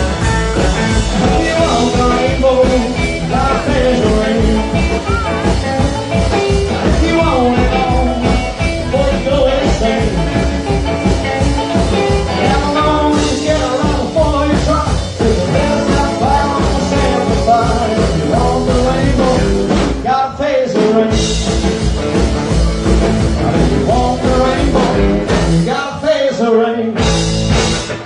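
A rock and roll band playing live, with a brief drop in the bass about 20 s in and the song coming to its final chords near the end.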